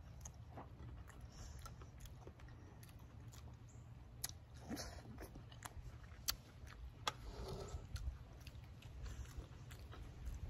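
Faint close chewing and mouth sounds of a person eating rice and stewed luffa with her fingers, with scattered small clicks over a low steady rumble.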